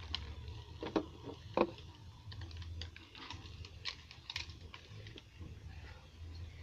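Computer keyboard keys being pressed: faint, irregular clicks, a few sharper ones in the first two seconds, over a steady low electrical hum.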